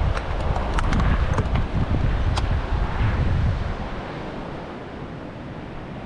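Wind gusting against the microphone over the steady wash of surf, with a few light clicks in the first couple of seconds. The gusts ease off about four seconds in, leaving mostly the surf.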